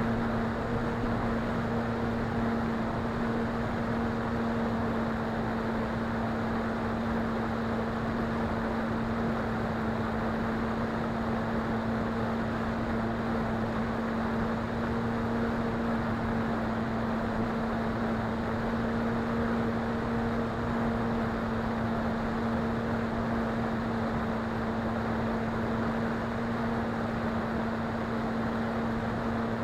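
Electric motor and propeller of a SkyClimber FPV model plane in flight, holding one steady pitch, over a constant rushing noise of air.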